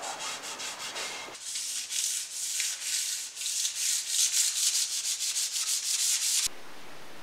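A cloth rag rubbing wipe-on polyurethane across a wooden tabletop in quick back-and-forth strokes, about four or five a second. Near the end the rubbing cuts off suddenly, leaving a steady hiss.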